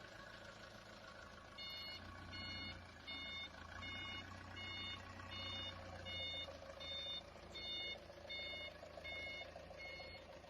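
A vehicle's reversing alarm beeping at an even pace, about one and a half beeps a second, over a steadily running engine.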